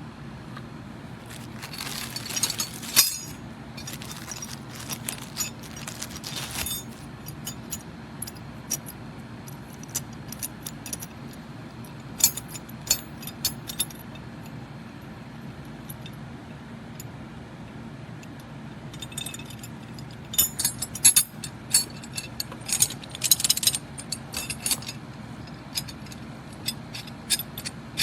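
Steel wrenches from a universal multi-tooth wrench set clinking and jangling as they are handled and fitted onto a bolt, in irregular bursts of sharp metallic clicks over a steady low hum.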